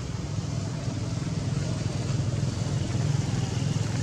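A steady low rumble, even throughout with no breaks.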